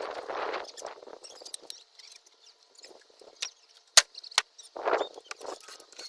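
Scraping and rustling of things being handled, with a sharp click about four seconds in and another just after.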